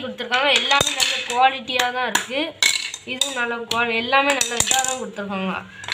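Wooden spoons and spatulas knocking against one another as they are handled, a few sharp clacks. Over them runs a wordless, wavering pitched voice.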